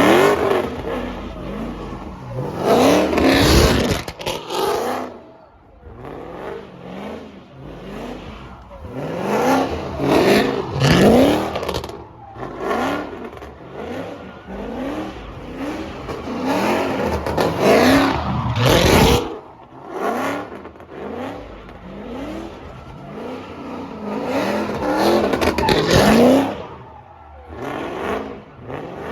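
Car engines revving hard again and again, the pitch sweeping up with each rev and falling back between them.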